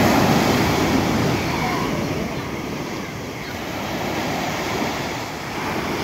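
Small ocean waves breaking at the shoreline and washing up the sand, a rush of surf loudest in the first second and swelling again a few seconds later.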